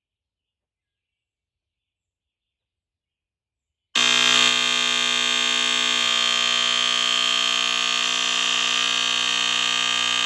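ESL 206 smoke alarm sounding on test: a loud, steady, unbroken high-pitched alarm tone starts suddenly about four seconds in, after silence, and does not pulse.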